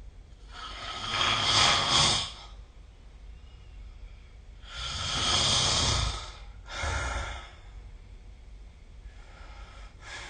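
A sleeping person snoring and breathing heavily. There are two long, loud noisy breaths about four seconds apart, a shorter breath right after the second, and a fainter one near the end.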